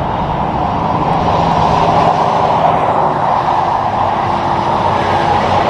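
Semi trucks passing on a highway: a steady roar of tyres on the road with a low diesel engine drone underneath.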